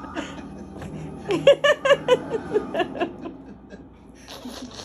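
A person laughing: a quick run of short ha-ha sounds starting about a second and a half in, trailing off by about three seconds.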